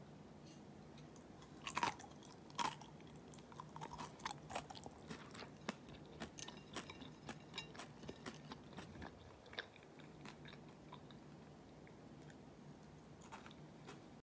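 Crunching and crackling of the crispy lattice crust on pan-fried gyoza: two loud crunches about two seconds in, then a run of small crackles that dies away.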